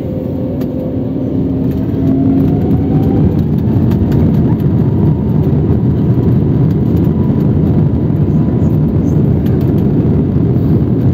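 Airliner's jet engines spooling up for takeoff, heard from inside the cabin: a rising whine over the first few seconds, then loud steady engine and rolling noise as the plane accelerates down the runway.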